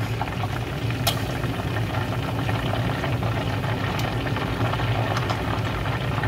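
Chicken deep-frying in a pot of oil: a steady sizzle over a constant low hum, with a single click of metal tongs about a second in.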